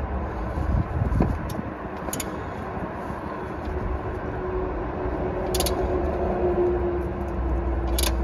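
Steady low background rumble with a few sharp metallic clicks, about four spread across several seconds, as the new oxygen sensor is tightened into the exhaust pipe.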